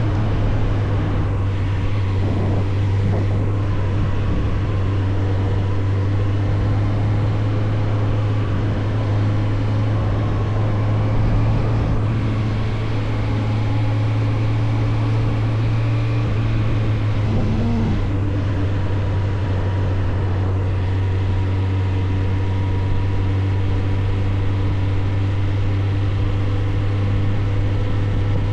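Suzuki GSF 600 Bandit's inline-four engine running at steady revs while the motorcycle is ridden, one even drone with no change in pitch.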